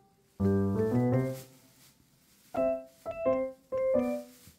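Background piano music: a low chord with notes climbing upward about half a second in, a short pause, then a run of single notes.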